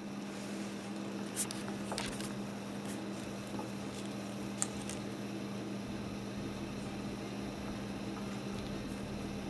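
Steady low hum under a faint hiss, with a few faint ticks.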